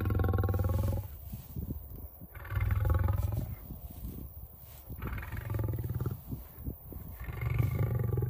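Male lion roaring: a run of deep, drawn-out calls about a second each, repeated every two to three seconds, the third one quieter.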